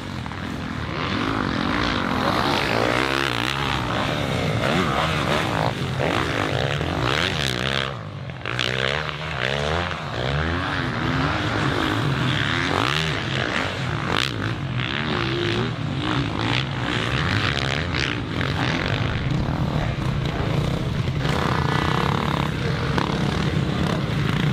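Four-stroke motocross bikes racing, their engines revving up and down repeatedly as they accelerate and back off.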